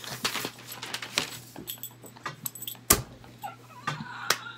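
Two people laughing breathlessly in wheezes and gasps, with scattered clicks and rustles and one sharp knock about three seconds in.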